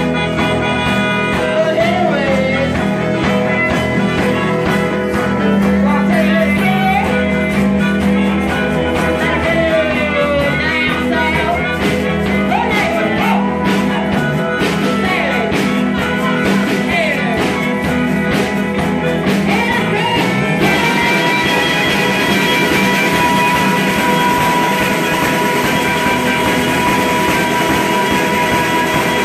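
Live band music with singing over a steady beat. About two-thirds of the way through it cuts abruptly to another passage in which an accordion holds long notes over the rhythm.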